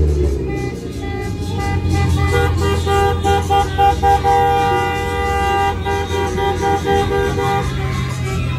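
Car horns honking in celebration from a slow procession of cars, long held blasts from more than one horn overlapping, pulsing in places, over the low running of engines.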